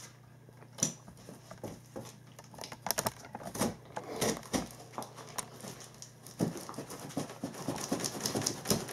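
Knife cutting through packing tape along the seam of a cardboard box: irregular scratchy scrapes and small clicks of the blade on tape and cardboard.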